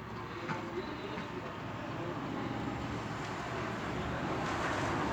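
Steady background road-traffic noise that grows slowly louder, with a couple of faint clicks about half a second and a second in.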